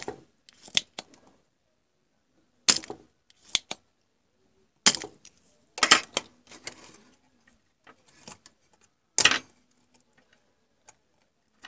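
Spring-loaded desoldering pump firing and being re-cocked: sharp clicks and snaps at irregular intervals, the loudest right at the start and another about nine seconds in.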